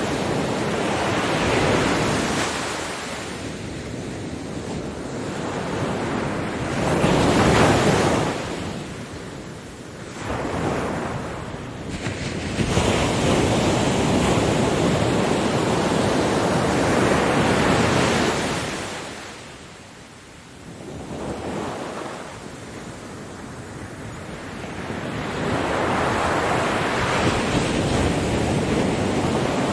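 Ocean waves washing onto a beach in surges that swell and ebb every few seconds. The loudest crash comes about eight seconds in, and a long swell follows in the middle. A lull about twenty seconds in gives way to the surf building again.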